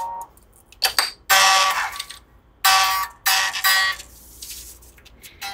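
Several bright, ringing single notes, about a second apart, plucked on the newly fitted unwound first (high E) string of a Gibson Les Paul electric guitar as it is brought up to tension; each starts sharply and rings on.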